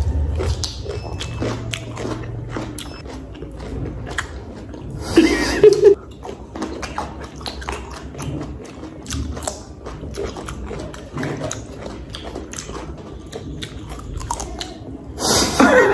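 Crunching and chewing of raw salted cucumber slices, many crisp bites in quick succession. A louder outburst comes about five seconds in and again near the end.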